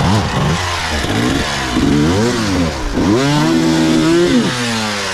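Motorcycle engine revving in short throttle blips, its pitch rising and falling about once a second, then climbing and holding higher for over a second before dropping off near the end.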